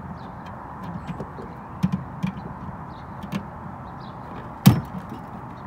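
Scattered knocks and clicks of hands and a tool working on the underside of a Dodge Charger's trunk lid, with one sharp, loud knock about three-quarters of the way in.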